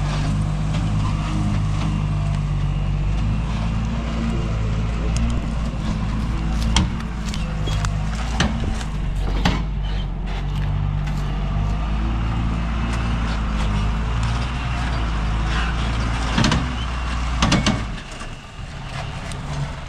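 A motor vehicle's engine running with a steady low rumble, several sharp knocks or clicks over it, and the engine sound dropping away about eighteen seconds in.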